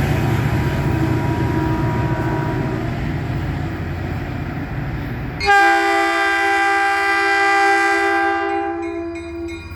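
Low rumble of a Caltrain train. About five and a half seconds in, the train's horn sounds one loud, steady blast for about four seconds, then fades.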